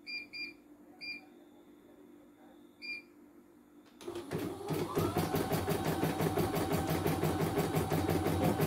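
CNY E900 computerised embroidery machine: four short beeps from its control-panel buttons, then about four seconds in it starts stitching, its motor picking up speed over about a second into a steady, rapid rhythm of needle strokes.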